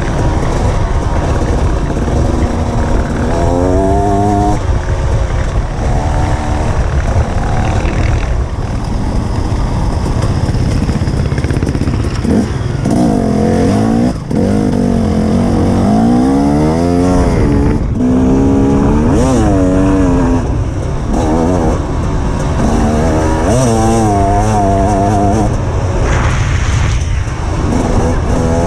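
Enduro dirt bike engine on a trail ride, its note rising and falling again and again as the throttle is opened and closed, over a heavy low rumble.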